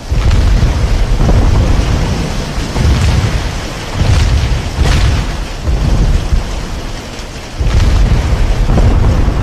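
Hailstorm: hail and rain pelting down steadily, under loud low rumbling gusts of wind buffeting the microphone that surge and ease every few seconds.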